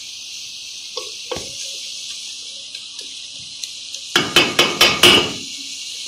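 Onion, tomato and chicken masala sizzling in an aluminium pot with a steady hiss while a wooden spoon stirs it. About four seconds in, the wooden spoon knocks sharply against the pot about six times in quick succession, the loudest sound.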